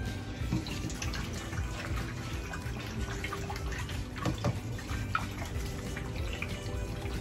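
Water splashing and dripping in a stainless steel bowl as fish are washed by hand, with irregular small splashes and light clicks throughout.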